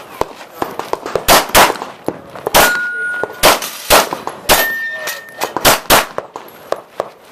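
A pistol fired in a string of about nine shots over roughly five seconds during a USPSA practical shooting stage, with struck steel targets ringing after some of the hits.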